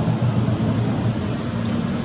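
Steady low rumbling background noise with an even hiss above it.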